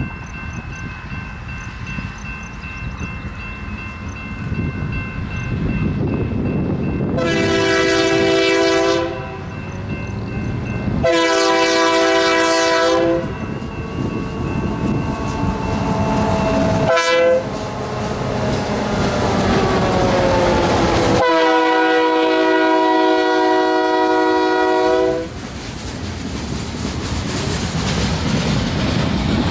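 BNSF diesel locomotives' multi-chime air horn blowing the grade-crossing signal: long, long, short, long. The approaching engines rumble underneath, and wheel and rail noise rises near the end as the locomotives pass.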